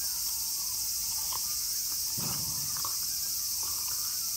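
Steady, high-pitched drone of an outdoor insect chorus in summer, unchanging throughout. A short low rumble about two seconds in stands out from the dogs wrestling close by.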